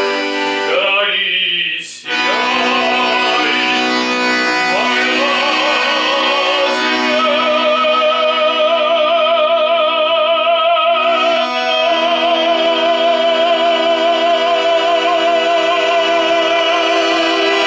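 A song with instrumental accompaniment, a voice holding long notes with vibrato. The last note is held for about ten seconds, and the music stops suddenly near the end.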